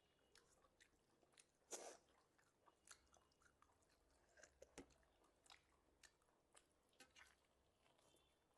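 Faint mouth sounds of a person chewing food: irregular wet smacks and clicks, the loudest about two seconds in.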